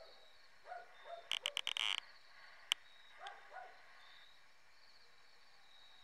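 An animal calling in short groups of two or three, over a steady high insect trill. About a second and a half in there is a rapid run of loud, sharp clicks, and a single sharp click comes shortly after.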